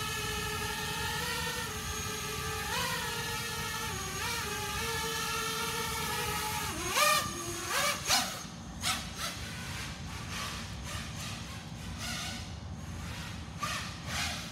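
Hexacopter with six BrotherHobby 2306 2450KV brushless motors and propellers hovering with a steady whine whose pitch wobbles as the throttle is corrected. About seven seconds in the pitch drops and there are a few loud bursts as the craft comes down near the floor; after that the steady whine stops and only short, scattered bursts of motor sound remain.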